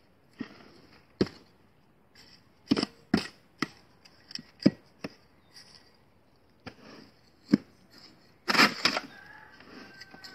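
Garden hoe chopping into and scraping through a loose soil mix of manure, leaf compost and coarse sand in a metal wheelbarrow: irregular strikes, with a longer, louder scrape near the end.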